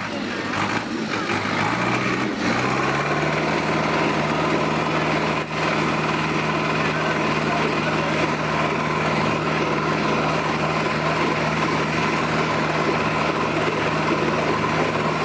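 Two Zetor diesel tractors, a Crystal 12111 and a 7745, pulling against each other back to back. The engines rise in pitch over the first two to three seconds, then hold a steady, high-revving note under full load.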